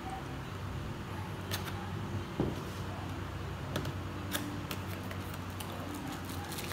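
A small cardboard box being cut open with a knife and its paperboard flaps pulled apart, heard as scattered light clicks and scrapes, the sharpest about two and a half seconds in, over a steady low hum.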